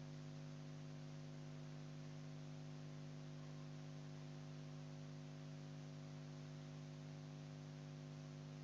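Faint, steady electrical mains hum with a light hiss underneath, unchanging throughout.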